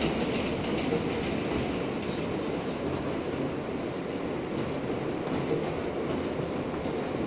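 Subway train running along an elevated line, heard from inside the car: a steady rumble of wheels on rail with some clickety-clack. Another train passes close alongside at the start.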